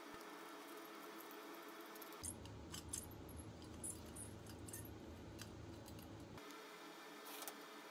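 Light metallic clinks of a coiled wire spring handle knocking against a small sheet-steel box as it is fitted by hand. The clicks are short and scattered, most of them in the middle, over a faint steady hum.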